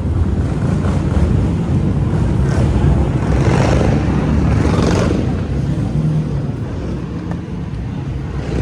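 Manhattan street traffic: a steady low rumble of engines and tyres, with a louder rush of a vehicle passing about halfway through.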